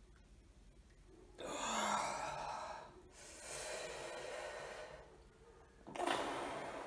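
A man breathing heavily through his mouth: a loud breath out, then a second long breath, and a short forceful puff of air blown out through puffed cheeks about six seconds in.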